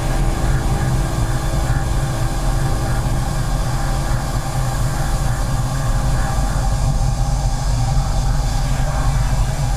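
Emuge HPC-Jet-Cut 3/8 in solid carbide end mill milling 316 stainless steel on a CNC machine: a steady cutting noise with a strong low rumble.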